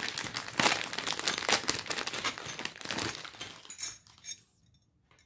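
A clear plastic packet being crinkled and rustled by hand as bangles are pulled out of it. The crackling stops about three and a half seconds in.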